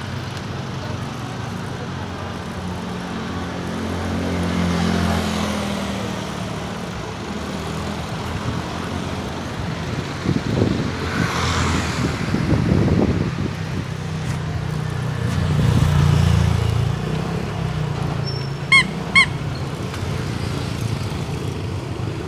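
Road traffic heard from a moving bicycle: motor vehicles passing with engine rumble and tyre noise that swells twice. Near the end come two short horn beeps.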